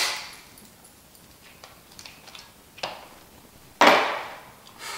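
Sharp cracks and snaps of cooked shellfish shells being broken open by hand, four in all, the loudest and longest about four seconds in.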